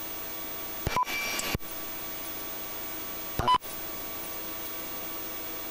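Police radio channel hiss with a faint steady electronic hum, broken twice by short clicks and a brief beep, about a second in and again about three and a half seconds in, the second the louder.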